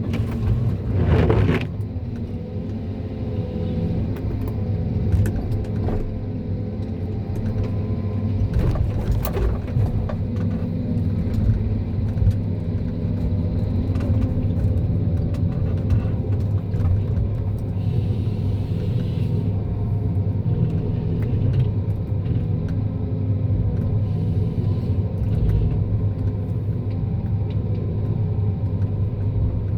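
John Deere 1270G forestry harvester's diesel engine running at a steady drone, with a few short knocks or cracks from the working machine, the clearest about a second in and around nine seconds in.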